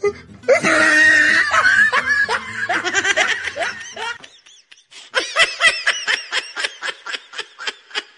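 Loud laughter: high-pitched laughing at first, then from about five seconds in a run of quick, evenly spaced 'ha' bursts that fade away.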